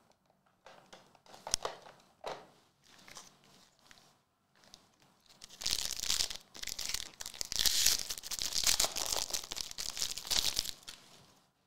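A foil trading card pack being torn open and its wrapper crinkled: a loud stretch of dense crackling lasting about five seconds, starting about halfway in, after a few faint handling clicks.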